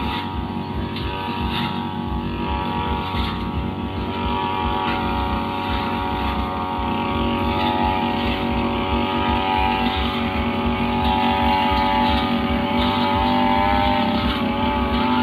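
Two-stroke brush cutter (Rio grass-cutting machine with a blade) running steadily at working speed, its pitch wavering slightly and growing a little louder over the second half.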